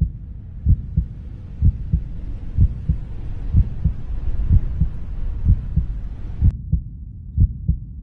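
Heartbeat sound: low double thumps repeating about once a second, over a faint hiss that cuts off suddenly about six and a half seconds in.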